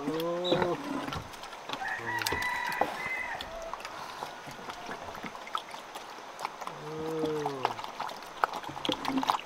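Wild boar piglets eating from a wooden log trough, with many small clicks of chewing and rooting in the feed throughout. Over this a rooster crows twice, a drawn-out, arching call near the start and again about seven seconds in.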